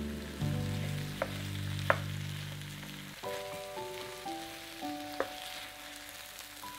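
Vegetables and tomato paste sizzling in a frying pan as they are stirred with a wooden spoon, with a few sharp knocks of the spoon against the pan.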